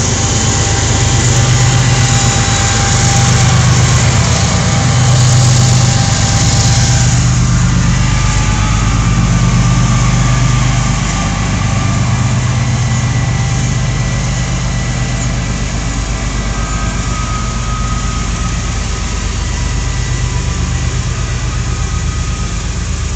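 Semi truck's diesel engine idling steadily close by, a strong low hum, with a freight train of loaded coal cars rolling past in the background.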